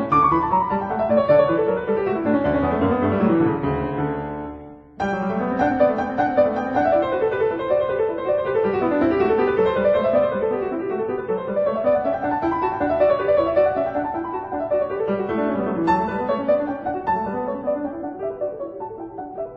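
Background piano music, flowing runs of notes rising and falling; it fades out briefly about four to five seconds in and starts again abruptly.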